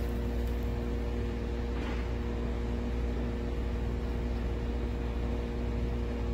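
A steady machine hum: a low drone with a few steady tones above it, unchanging throughout.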